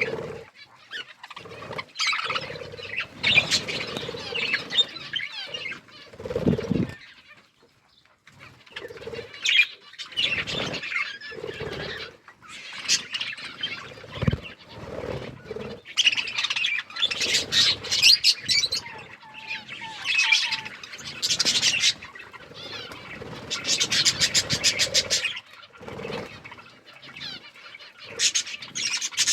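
Budgerigars chirping and chattering in irregular bursts, mixed with wing flapping and rustling.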